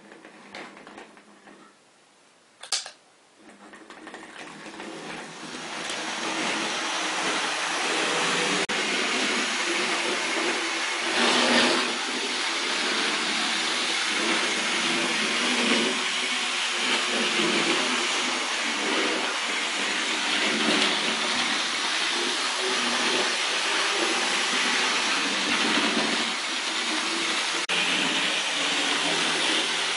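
Tri-ang OO gauge model Class 31 diesel locomotive and coaches running on the track: a steady whirring rush of motor and wheels on the rails that builds over the first few seconds as the train gathers speed. A single sharp click about three seconds in.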